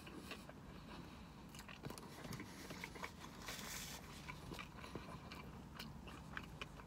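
Close-miked chewing of a mouthful of bacon cheeseburger: faint wet mouth clicks and smacks. There is a brief napkin rustle at the mouth about halfway through.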